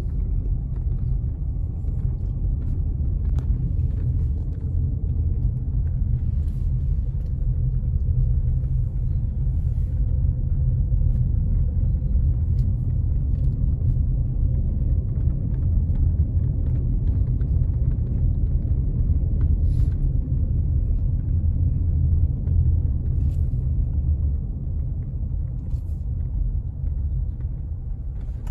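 Car driving slowly, a steady low rumble of engine and tyres.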